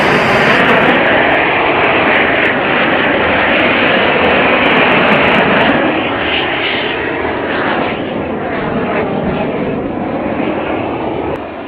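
Torch flame burning with a steady rushing roar, charring the surface of chainsaw-carved wood. The sound eases a little and wavers about halfway through.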